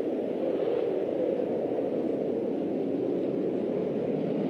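Jet noise from the JF-17 Thunder's single RD-93 turbofan as the fighter flies its display: a steady, loud rumble that swells just before and then holds.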